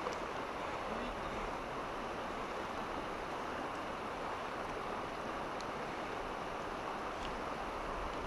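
Steady rush of river current running over a rocky riverbed, with a couple of faint ticks near the end.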